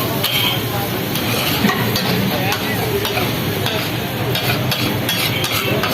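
Food sizzling as it fries in a hot pan, with stirring and a few light metal clicks in the second half.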